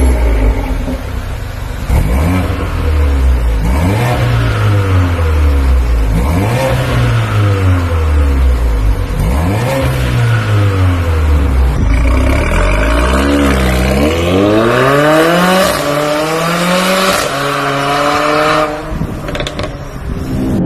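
Mercedes-AMG CLA45's turbocharged 2.0-litre four-cylinder revved repeatedly while standing still, heard from behind at the Armytrix Valvetronic aftermarket exhaust tips. The pitch climbs and falls back several times, and a last, longer rev is held briefly before it drops back toward idle.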